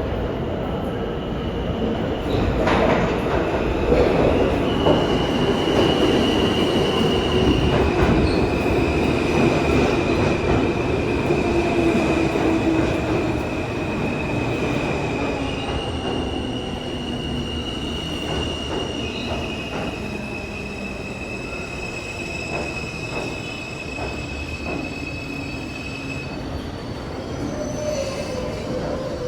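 New York City subway L train (R143/R160 cars) running through the tunnel: a steady low rumble of wheels on rail, with long high-pitched wheel squeals that hold one pitch for several seconds, then step to another, and a few sharp clicks.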